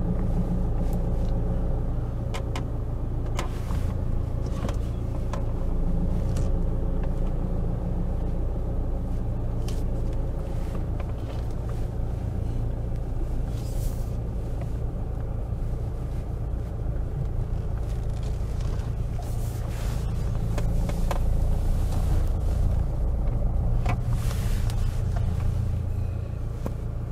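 Saab 9-5 driving off at low speed, heard from inside the cabin: a steady low engine and road rumble with a few scattered clicks and ticks. The rumble swells a little twice, about six seconds in and again near the end, as the car picks up speed.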